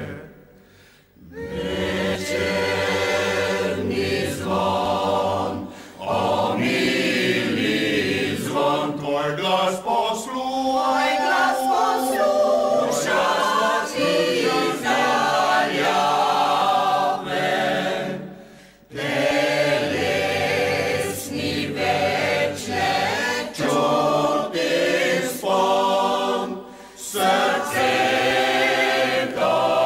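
Mixed choir of men's and women's voices singing. The singing pauses briefly between phrases about a second in and again just past the halfway mark.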